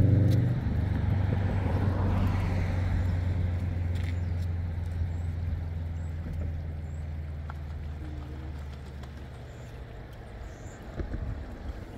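A motor vehicle's engine close by at first, then fading steadily into the distance over about ten seconds as it moves away.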